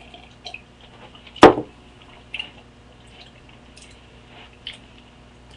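A single short burp about a second and a half in, with a few faint clicks around it.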